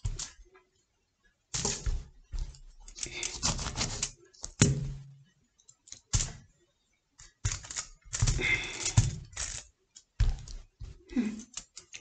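Knife cutting oranges in half on a plastic cutting board: irregular runs of knocks and thuds as the blade strikes the board and the halves are set down, with short pauses between runs.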